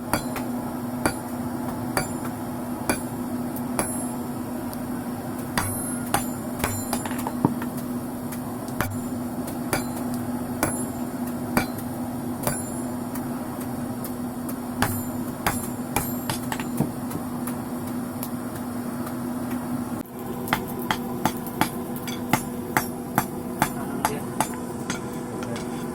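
Hand hammer striking steel rebar as it is forged into a crowbar, with ringing metal-on-metal blows spaced about a second apart. After a sudden break about twenty seconds in, the blows come quicker, about two a second.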